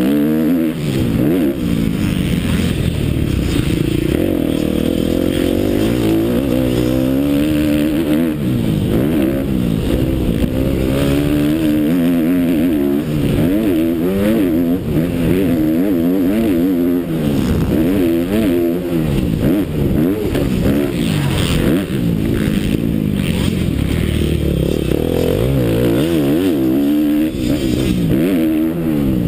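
Motocross bike engine revving hard on a dirt track, its pitch rising and falling over and over as the rider opens and shuts the throttle and shifts through the gears, heard from the rider's helmet.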